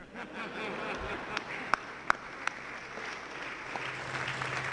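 A roomful of people laughing and clapping after a joke, with a few single sharp claps standing out around the middle.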